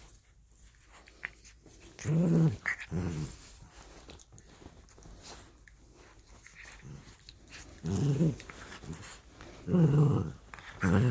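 Miniature dachshunds growling in play as they wrestle: a few short, low growls spaced out, with more of them close together near the end.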